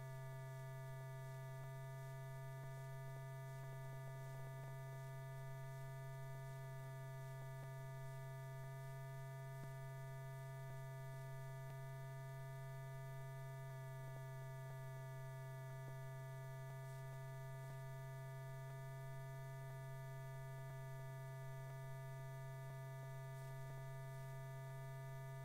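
Steady low electrical hum with a set of fainter, higher steady overtones, unchanging and with no other sound on top.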